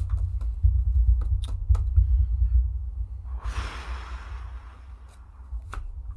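A person sighing, a long breathy exhale about three and a half seconds in, over a steady low rumble with a few scattered light clicks.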